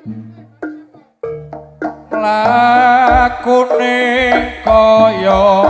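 Live Javanese jaranan ensemble music. A few sparse struck notes open it, then about two seconds in the full ensemble comes in loud, with a wavering melody line over deep drum beats.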